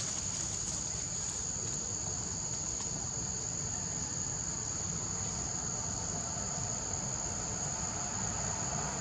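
Insects droning in one steady, continuous high-pitched tone, with a low rumble underneath.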